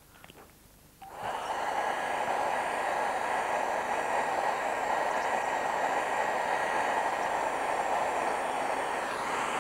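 Handheld electric hair dryer switched on about a second in and running steadily, a constant rush of air with a faint whine, blowing on watercolour paper to dry masking fluid.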